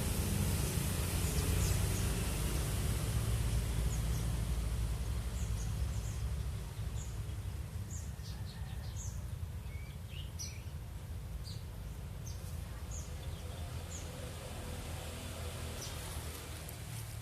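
Small wild birds giving short, high chirps, scattered and overlapping and most frequent in the middle, over a steady low rumble and hiss.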